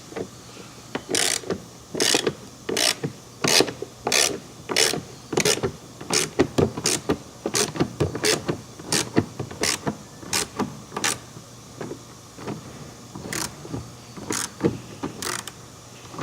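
A 3/8-inch hand ratchet clicking in repeated back-and-forth strokes, about one and a half a second, as it backs out T30 Torx fasteners. There is a short pause a little past the middle, then more strokes.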